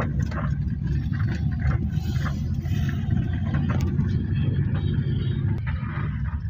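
Steady low engine and road rumble of a moving car, heard from inside the cabin.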